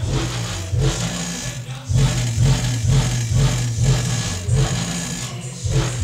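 Bass-heavy music played loud through a home subwoofer, with a deep, pulsing bass line.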